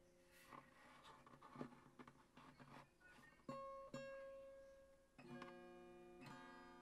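Quiet, sparse guitar music: single plucked notes ringing out and fading, then a fuller strummed chord about five seconds in.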